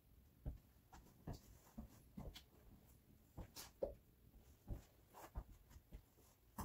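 Near silence, broken by about a dozen faint, irregular taps and knocks from a person at work painting cabinets and shifting about.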